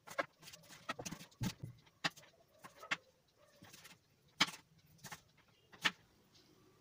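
Chef's knife chopping bok choy on a wooden cutting board: irregular sharp knocks of the blade on the board, roughly one or two a second, the loudest near the end.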